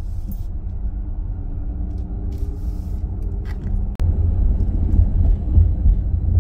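Road noise inside a moving car: a steady low rumble of tyres and engine, with a faint engine hum that rises a little. After a break about four seconds in, the rumble is louder.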